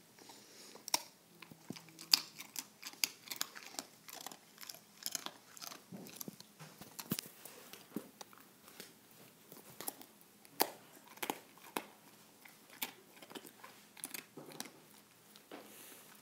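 Dog gnawing on a hard chew treat: irregular crunching bites and clicks of teeth on the chew, some in quick runs.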